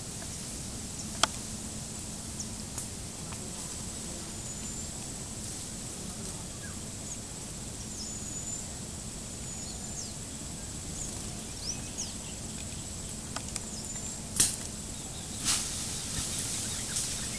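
Outdoor field ambience: a steady high-pitched whine with short chirps over it, and a few sharp clicks or snaps, one about a second in and two louder ones near the end.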